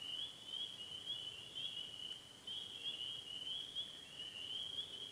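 Steady, high-pitched chorus of many short rising chirps overlapping one another, from night-calling animals in the lakeside dark.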